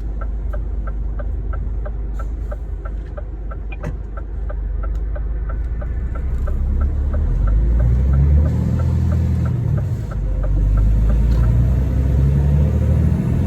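New-generation Scania 540S truck's stock inline-six diesel running at low revs, then pulling harder and louder from about six seconds in, with a brief dip about ten seconds in. A steady ticking, about three a second, runs alongside until near the end.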